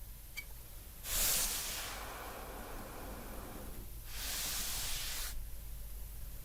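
Cardboard packaging being slid open: two rasping slides, the first about a second in and trailing off, the second about four seconds in and stopping abruptly.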